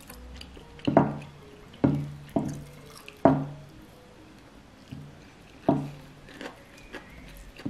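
Irregular knocks, about six, each with a short low ring: the annoying rocking noise of the furniture knocking as it rocks. Faint background music runs underneath.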